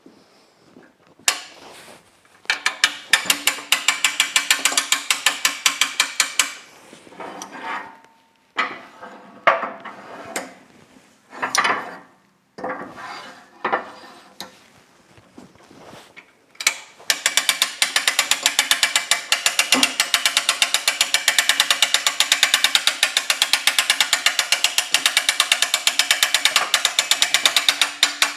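Ratchet mechanism clicking in fast, even runs of several clicks a second: a short run early on, then a long unbroken run over the last ten seconds or so, with separate knocks and clatter of handled metal parts in between.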